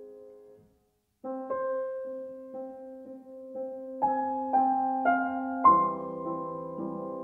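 Background piano music: a chord dies away into a brief silence about a second in, then slow notes resume about every half second over a held low note.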